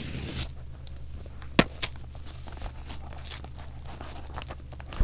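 Cardboard mailer being opened by its pull-tab tear strip and handled: tearing and rustling of cardboard, with a sharp snap about a second and a half in, over a steady low hum.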